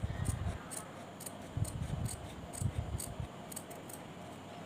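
Scissors snipping through stiff canvas interfacing: a run of short, crisp cuts about two a second.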